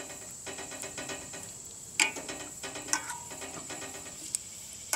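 A metal kitchen utensil clinking and scraping against a stainless steel bowl as perilla leaves are stirred in hot water, with a few sharp clinks about two, three and four seconds in. A steady high insect drone runs underneath.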